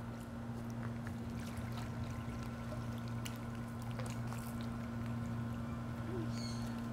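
Steady low hum with water trickling in a shallow alligator pool, and scattered faint clicks.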